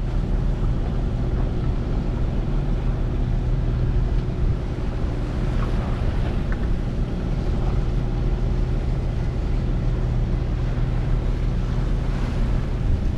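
A sailboat's engine running steadily under way, with wind on the microphone and the wash of water around the boat.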